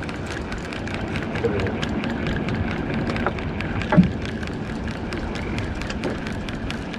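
Steady crackly noise of sea water slapping a small boat's hull, with wind on the microphone and a single knock about four seconds in.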